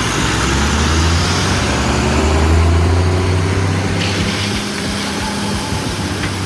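Heavy-haul tractor unit's engine running steadily with a low drone.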